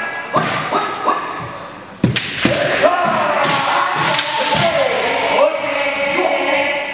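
Kendo fighters' kiai shouts. There are short rising yells in the first second, then sharp knocks of bamboo shinai strikes and stamping feet on the wooden floor about two seconds in. A long held shout with a wavering pitch follows and carries on almost to the end.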